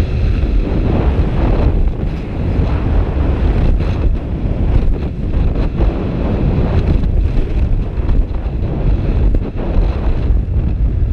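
Wind rushing over a skydiver's head-mounted camera microphone while descending under an open parachute: a loud, low rumble that swells and dips unevenly.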